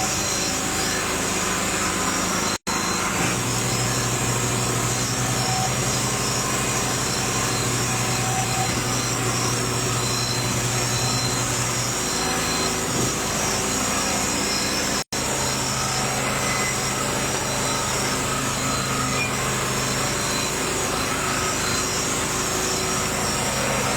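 Steady mechanical running noise, an engine or motor at a constant speed, with a low hum that fades in and out. It is broken twice by abrupt cuts to silence.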